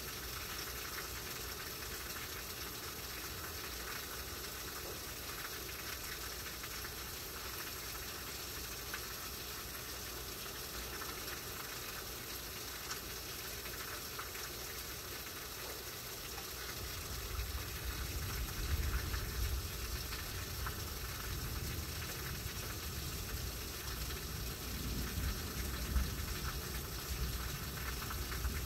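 Heavy tropical-storm rain falling steadily, a constant hiss. About two-thirds of the way through, a low, uneven rumble of wind gusts joins in and swells and fades.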